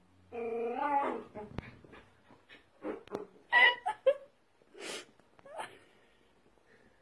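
Dachshund puppy making short whines and grunts while rolling and wriggling on a carpet, with soft scuffling of its body against the carpet between the calls.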